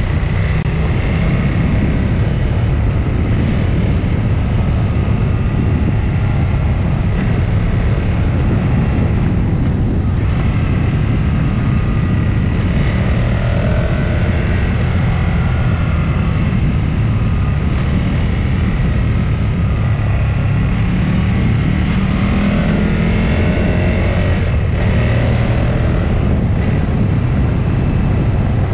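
Motor vehicle driving on a mountain road: a steady, heavy low rumble of engine, wind and road noise, with the engine's pitch drifting up and down.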